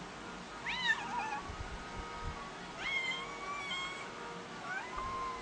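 Domestic cat meowing three times: a short call that rises and falls about a second in, a long drawn-out call around the three-second mark, and a rising call near the end.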